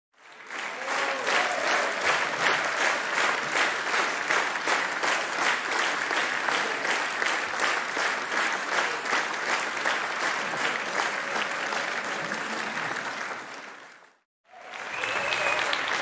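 Crowd applauding and cheering: dense, rapid clapping with a few voices calling out, fading away after about thirteen seconds. After a brief silence a second round of applause and cheering begins, with high whoops over the clapping.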